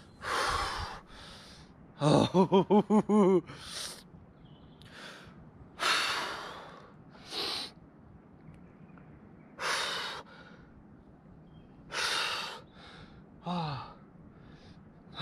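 A man's heavy, sharp breathing while standing in very cold water: forceful breaths every couple of seconds, with a quick run of about six short pitched grunts about two seconds in, typical of cold-shock breathing.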